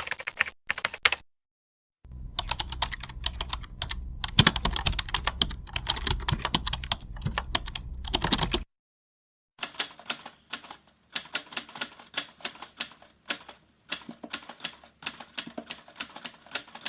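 Computer keyboard typing in three separate takes: a brief burst of keystrokes, then about six seconds of fast, dense typing over a low hum, then after a short pause a lighter, quick run of keystrokes.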